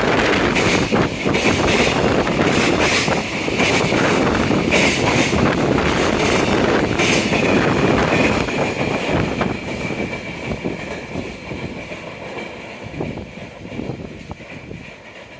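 A train passing on the rails, with a repeated clacking of wheels over rail joints and a thin, steady high whine. The sound fades away over the second half as the train moves off.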